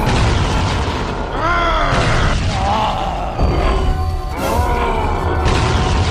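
Cartoon fight soundtrack: music with booming impacts and a steady low rumble, and three short pitched cries that rise and fall.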